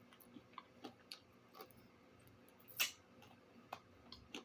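Faint, irregular wet mouth clicks and smacks from a person chewing chicken close to the microphone, with one louder click a little under three seconds in.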